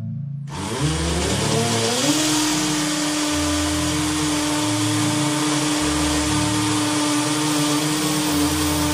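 Cordless drill boring into the bathroom wall: the motor spins up with a rising whine about half a second in, then runs steadily under load with a hiss of drilling.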